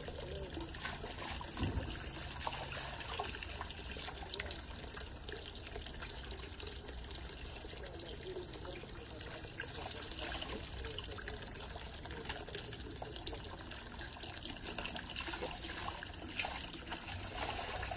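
Water from a garden hose trickling steadily into a plastic basin of leafy greens being rinsed, with light splashes and small knocks as the leaves are handled.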